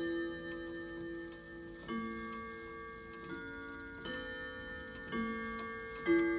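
Grandfather clock chiming: about six struck notes, one roughly every second, each ringing on under the next, with the clock ticking beneath. It is the quarter-hour chime set off by advancing the hand to the 9, playing through after its chains were rerouted and the chimes aligned.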